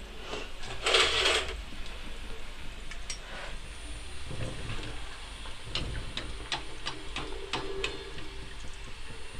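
Kachoris deep-frying in hot oil in an iron kadhai, sizzling and bubbling, with a louder rush of sizzle about a second in. Later come several sharp clicks of the metal slotted spoon at the pan.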